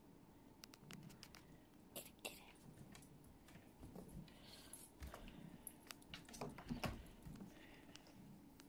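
Faint, scattered light taps and skittering clicks of a tabby cat batting a small ring around a bathtub floor, with a few louder clicks about three-quarters of the way through.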